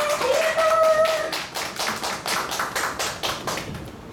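A small audience clapping steadily, fading out near the end. A drawn-out voice call rings over the clapping in the first second.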